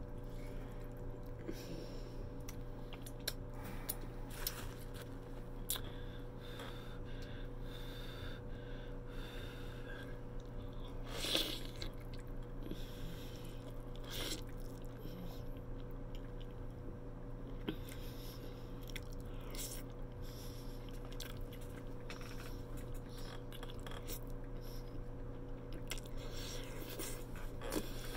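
Close-up chewing and biting of stuffed cabbage in sauce, with wet mouth smacks and clicks and one louder mouth noise about 11 seconds in. A steady low electrical hum runs underneath.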